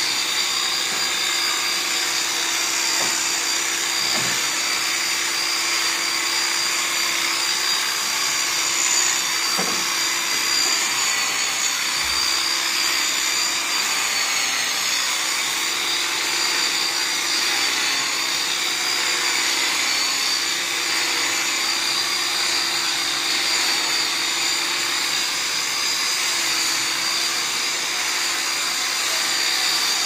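Corded electric sheep-shearing clippers running continuously while shearing a sheep's fleece: a steady motor whine that dips slightly in pitch a couple of times.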